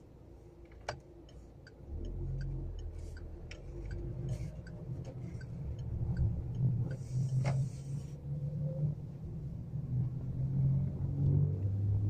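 Car engine and tyre rumble heard from inside the cabin while driving through town, the engine pulling harder and getting louder about two seconds in. A run of light, quick clicks sounds over the first half, and a short hiss comes around the middle.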